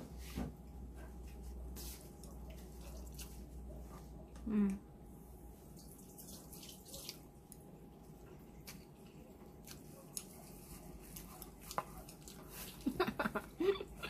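Faint wet mouth sounds of someone slurping and chewing glass noodles eaten with chopsticks: scattered smacks and clicks, with a short hum about four and a half seconds in and a busier run of clicks near the end.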